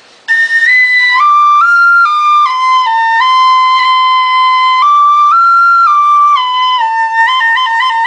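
A pito de vara, the traditional Salvadoran cane flute, playing a slow melody of clear, held high notes that step up and down, with quick trills near the end.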